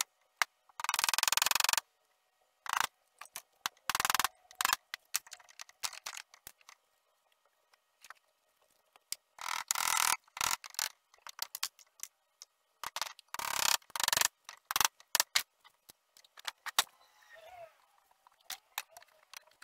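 Steel hammer tapping nail-on furniture glides into the ends of wooden table legs: clusters of quick sharp knocks, with single taps between them.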